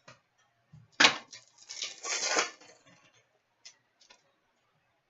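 A sharp tap, then about a second of crinkly rustling: a foil trading card pack being handled and torn open, with a few faint ticks of cards afterwards.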